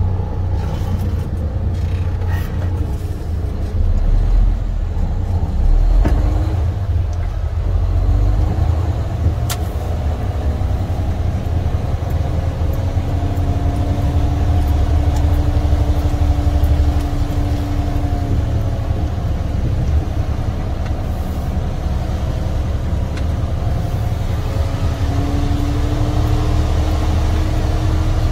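Semi truck's diesel engine running with a steady low rumble as the truck drives slowly, with a humming tone rising over it for several seconds in the middle and again near the end, and a single sharp click about ten seconds in.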